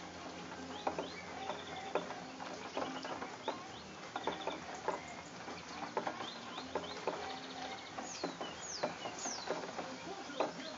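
Birds calling and chirping over steady rain, with many small drops ticking close by. A few quick falling whistles come near the end.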